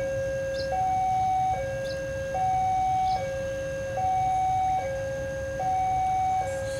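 Electronic two-tone warning alarm of a railway level crossing, alternating evenly between a higher and a lower note about every 0.8 seconds, signalling an approaching train.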